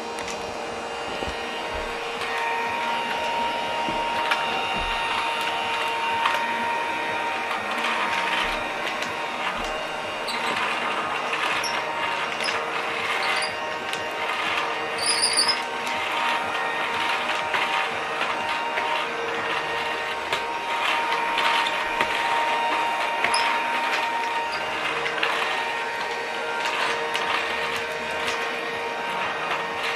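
Children's toy vacuum cleaner running on its battery. Its small motor gives a steady whine, with irregular rattling and scraping over it during a suction test and a few brief high squeaks about halfway.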